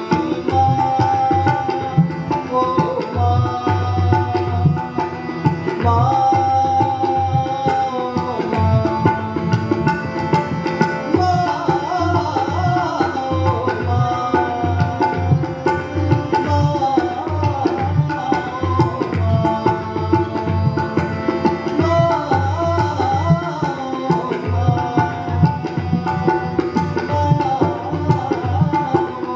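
Tabla playing a steady rhythm under a harmonium melody, accompanying a devotional bhajan.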